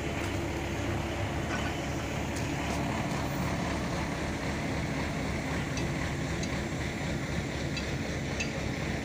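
Diesel engine of a Tadano rough-terrain mobile crane running steadily under load as it hoists a bundle of steel rebar, with a few faint ticks now and then.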